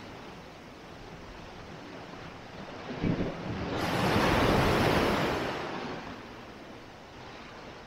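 Sea surf washing onto a beach, with one wave swelling up about halfway through and dying away.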